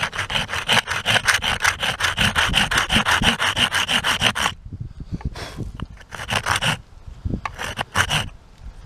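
Small saw blade cutting a notch into a green bamboo stalk for a whistle: quick, even back-and-forth strokes for about four and a half seconds, then a pause and a few single strokes near the end.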